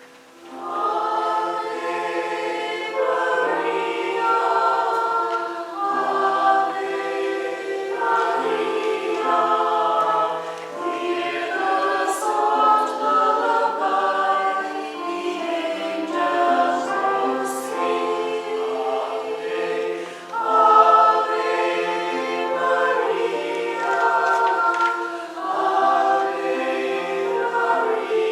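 Church choir singing, sustained notes in phrases that begin about a second in.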